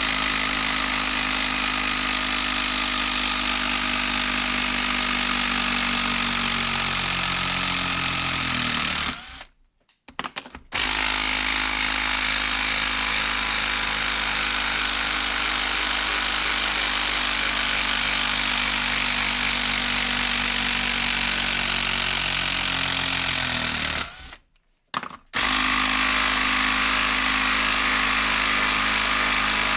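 Makita 12-volt brushed impact driver hammering continuously as it backs Timberlok screws out of a log, in three long runs with two brief pauses, about ten and twenty-five seconds in, as it moves to the next screw. Its pitch drops just before each of the first two stops.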